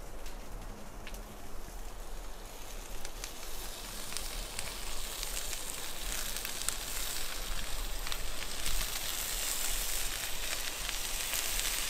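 Food sizzling in a frying pan over an open wood campfire, with small crackles from the burning wood; the sizzle grows louder after the first few seconds.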